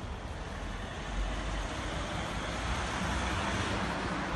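A car driving past on the road, its tyre and engine noise growing louder over a few seconds as it comes near.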